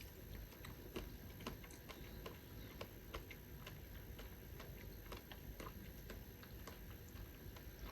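Faint, irregular small wet clicks of a mouth chewing soft konjac jelly.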